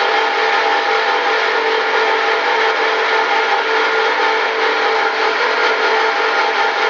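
MEP Shark 652 SXI EVO band saw, fitted with a Bahco 3853 Fabricator blade, cutting through a steel H-beam: a steady machine sound with several held tones over an even hiss of the cut.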